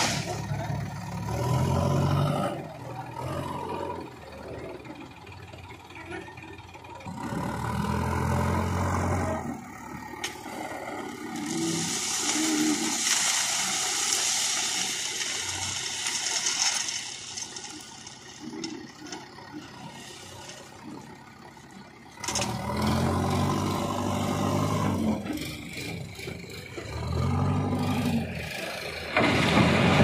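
JCB backhoe loader's diesel engine revving up and dropping back about four times as it works. Partway through comes a long rush of stones pouring from the front bucket into a tractor trolley.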